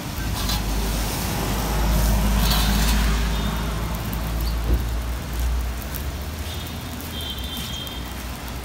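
A motor vehicle passing on the wet street, its low engine rumble building to its loudest about two to three seconds in and then fading. A single sharp knock comes near the middle.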